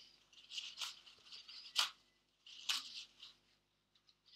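Scratchy rustling and scraping from objects being handled, with three sharp clicks a little under a second apart, the middle one loudest.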